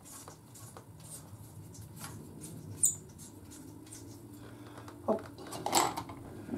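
Hand ratchet working a stubborn exhaust bolt: faint scattered clicks with one sharper click about three seconds in.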